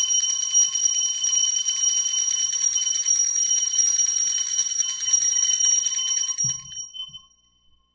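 Altar bells (sanctus bells) shaken in a continuous rapid jingle at the elevation of the chalice, marking the consecration of the wine. The ringing stops about six and a half seconds in and rings out briefly.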